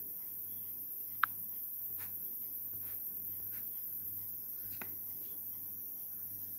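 Quiet background noise: a steady high hiss and a low hum, with one sharp click about a second in and a few fainter ticks later.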